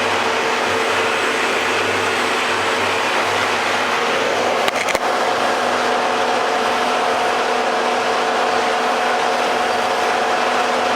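FSSh-1A woodworking spindle shaper's electric motor and spindle running steadily with a hum. About five seconds in there are a couple of clicks, after which a higher tone joins the hum.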